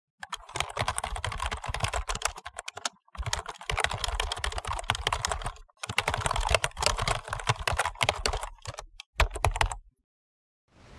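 Rapid keyboard typing clicks, a typing sound effect for text being typed out, in three long runs separated by brief pauses, with a few last keystrokes just before the end, after which it stops.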